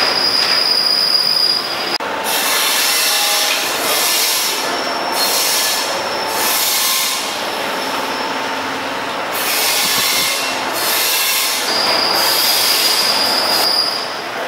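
Steady loud mechanical noise, with high-pitched squealing tones that come and go.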